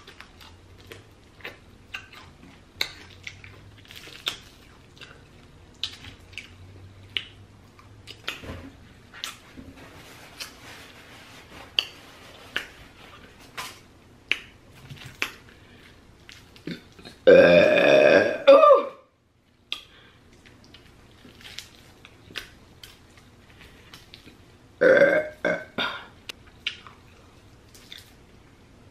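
Close-miked chewing of crispy fried chicken wings, with many small wet clicks and crunches. A long, loud burp comes about 17 seconds in and a shorter second burp about 25 seconds in.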